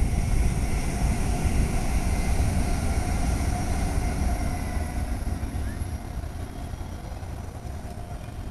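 Jakarta–Bandung high-speed electric train passing on its elevated viaduct: a steady low rumble that fades over the last few seconds as the train moves away.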